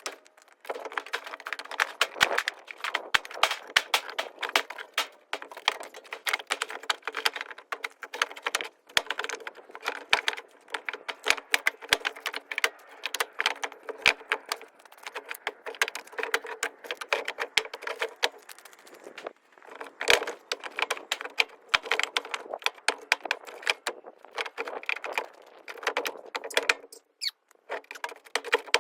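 Split firewood pieces clattering and knocking against each other as they are stacked, a rapid, continuous run of wooden clunks.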